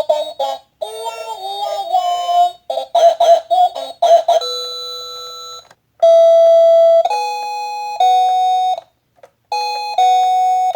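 A children's battery-powered toy playing a tinny electronic tune through its small built-in speaker at full volume: a quick synthesized sung melody for about four seconds, then several long held electronic notes separated by short gaps.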